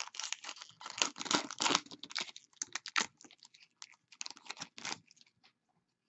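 A trading card pack wrapper being torn open and crinkled, with cards handled. It makes a dense run of crackling rustles and clicks that thins out and stops about five seconds in.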